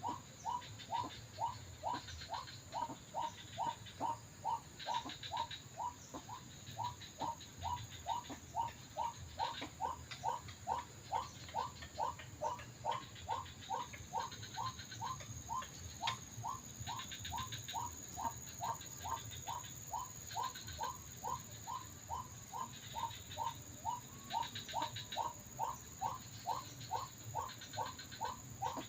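White-breasted waterhen (ruak-ruak) call played on a loop through a small MP3 speaker used as a lure: short rising notes repeated very evenly, about two a second. Underneath is a low rumble of strong wind.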